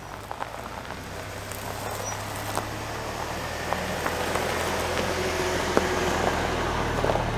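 2022 Toyota Tundra pickup driving on a dirt trail: a steady low engine hum that grows steadily louder, with scattered light clicks.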